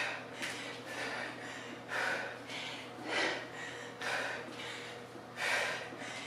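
A woman breathing hard in time with one-arm kettlebell swings: a sharp, forceful breath roughly once a second, with softer breaths between.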